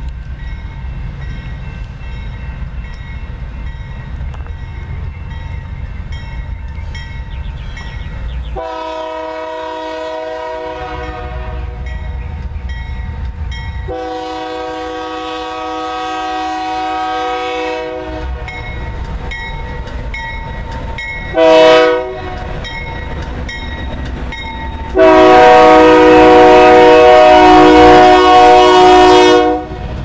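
GE Dash 9-44CW diesel-electric locomotive approaching with its engine rumbling, sounding its multi-chime air horn in the grade-crossing pattern: two long blasts, a short one, and a final long blast, the last one very loud as the locomotive nears.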